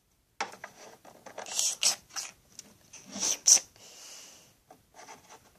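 Small plastic toy figures and accessories being handled and moved about: irregular clicks, taps and scraping of plastic, with a couple of louder rustling bursts.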